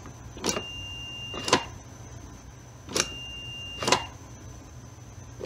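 Limit switch on a 3D-printed blast gate clicking as the gate moves, two rounds of it. Each time the switch closes, a multimeter in continuity mode gives a steady high beep for about a second, which stops at the next click: the switch is making and breaking contact as it should.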